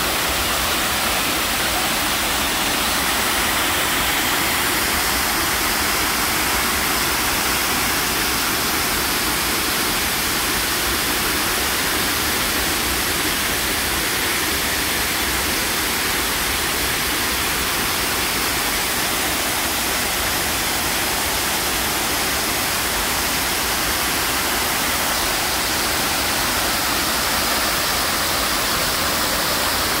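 Waterfall pouring into its plunge pool: a steady, unbroken rush of falling water.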